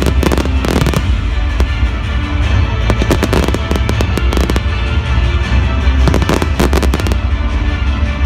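A fireworks display: bangs and crackling reports going off in quick succession, thickest about a second in and again around six and a half seconds in, over loud music with a heavy bass.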